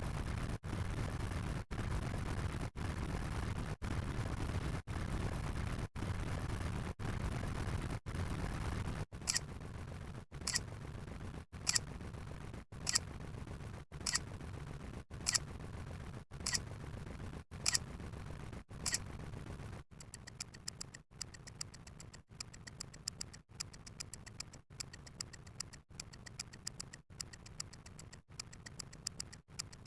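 A chain of short electronic sound-effect clips spliced back to back, each cut off by a brief silent gap about once a second. It starts as a low, rumbling noise; about nine seconds in it turns to a thinner hiss with a sharp high click roughly every second. From about twenty seconds in it becomes a quieter, fast high ticking.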